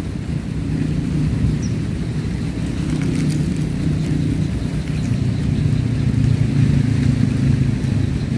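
An engine running steadily: a low, even hum that holds the same pitch throughout.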